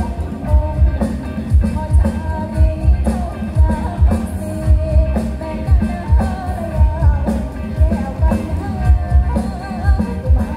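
A song with a singer over a heavy bass beat, about two bass thumps a second, played loud through large mobile sound-system speaker stacks.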